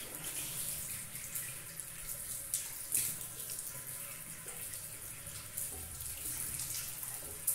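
Water tap running into a bathroom sink while hands scoop and splash water onto a face to rinse off soap, with a few brief splashes standing out over the steady flow.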